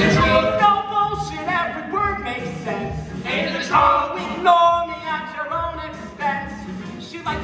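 Men singing a short passage in doo-wop style, several voices together, with light music under them.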